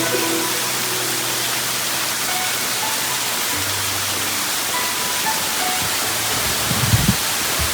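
Steady rushing of a waterfall with soft background music, and a few low thumps near the end.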